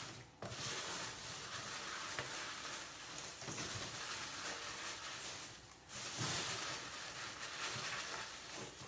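Plastic packaging and paper crinkling and rustling as they are handled, a steady crackle that drops out briefly twice, about a third of a second in and again near six seconds.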